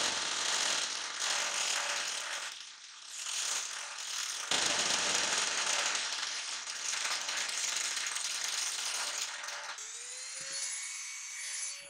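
Homemade belt-driven sanding drum machine running, a dense rattling mechanical noise with a short dip about three seconds in. Near the end it gives way to a steady whine that rises briefly, then holds.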